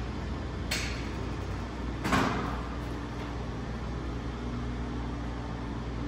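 Two short metallic knocks from light-gauge steel studs and track being handled and fitted at the ceiling: a faint one under a second in, and a louder one with a brief ring about two seconds in, over a steady low hum.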